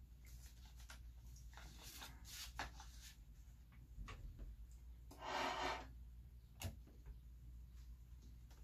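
Sheet music rustling and tapping against a music stand as the pages are handled and turned, in a scatter of light clicks and crinkles. About halfway through comes a short breathy hiss, followed by a single sharp click.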